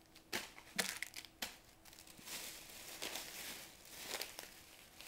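Plastic snack packaging crinkling and rustling as it is handled, with a few sharp taps in the first second and a half.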